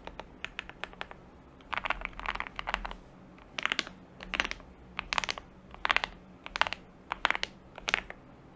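Typing on an Akko SPR67 mechanical keyboard with lubed Banana Split linear switches, a POM plate and foam dampening, giving a creamy sound. A few single keystrokes come first, then a quick run of typing, then short clusters of louder keypresses through the rest.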